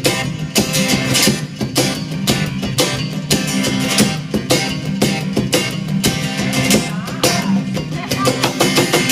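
Live acoustic rock band playing an instrumental passage: strummed acoustic guitars driving a steady rhythm over drum hits.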